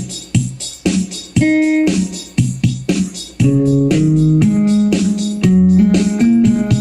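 Yamaha PSR-E283 portable keyboard playing its guitar voice over a rhythmic beat: short picked notes at first, then longer held notes stepping up and down in pitch from about halfway in.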